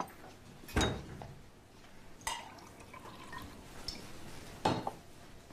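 Kitchen handling sounds: a few separate knocks and clinks as a cupboard and dishes are handled, the loudest about a second in, another about two seconds later and one more near the end.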